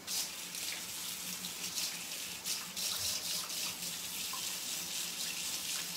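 Kitchen faucet turned on and running steadily into the sink while hands are washed under it to get paint off.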